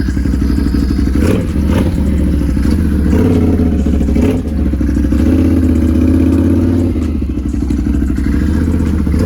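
Can-Am Renegade 1000 XMR ATV's V-twin engine running as the quad is ridden, its rumble picking up about a second in and holding stronger through the middle, with rattling knocks from the machine over rough ground.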